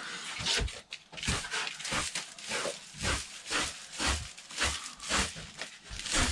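Dog panting, quick breaths at roughly two a second.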